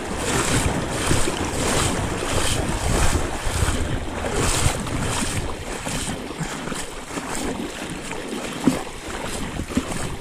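A person wading through a shallow river, the water splashing and sloshing with each stride, about two surges a second. Wind rumbles on the microphone underneath.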